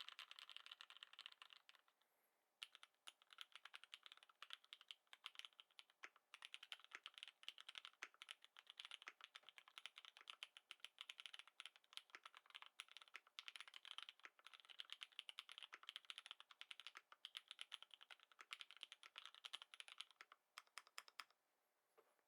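Fast, continuous typing on a custom mechanical keyboard with lubed Cherry MX Black linear switches, a dense run of soft keystroke clacks. It pauses briefly about two seconds in and stops a second or so before the end.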